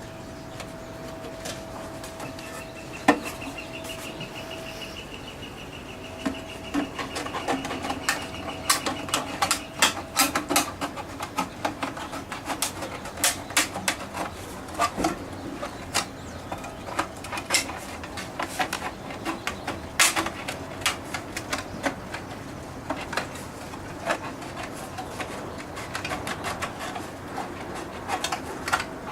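Irregular sharp metal clicks, knocks and clinks of a downpipe and leaf catcher being handled and sized to fit, coming thickest after the first few seconds. A faint steady tone and a pulsing higher trill sound through the first ten seconds or so.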